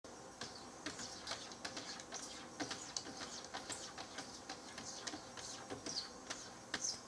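Cat pawing and scratching at the glass panes of a door to be let in. Its paws make quick, irregular scrapes and squeaks against the glass, a few a second.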